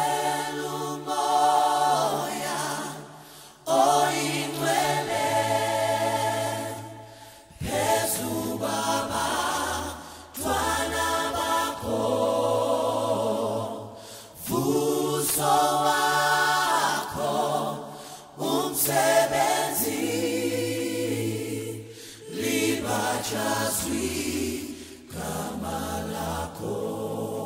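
Background music: a choir singing slow phrases a few seconds long over held low notes that change pitch between phrases.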